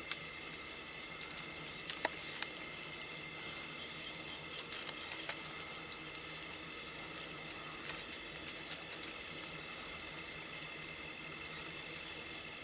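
Steady, hiss-like buzzing drone of thousands of beetles swarming in a tree, sounding like a swarm of bees, with a few faint ticks scattered through it.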